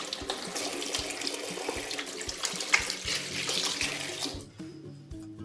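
Water running from a tap into a sink, a steady rush that stops about four seconds in.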